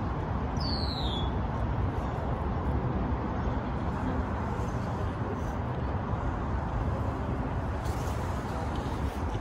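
Steady rumble of road traffic, with one short high chirp falling in pitch about half a second in.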